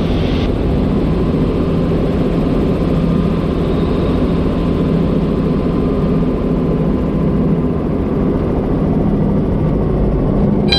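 Helicopter rotor and engine noise, steady and unbroken, during a practice autorotation descent to a touchdown.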